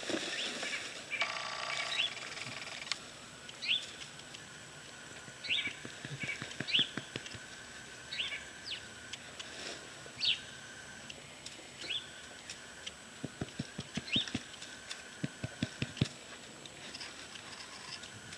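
Dry leaves crackling and rustling as a puppy lying in a leaf pile is rubbed and rolls about, with a bird's short, sharp chirps repeating every second or so. A run of sharp crackles comes in the last few seconds.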